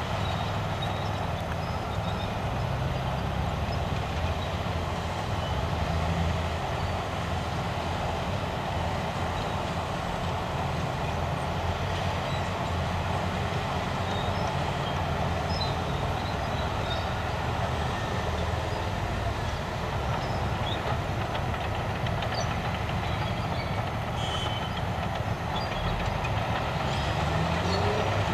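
Heavy diesel engines of Caterpillar articulated dump trucks and a crawler dozer running with a steady low rumble as they work. Near the end one engine's pitch rises as it revs up.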